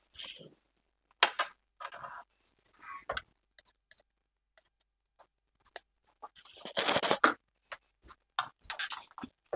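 Handling noise: scattered clicks and knocks of hard objects, with a louder rustle about seven seconds in.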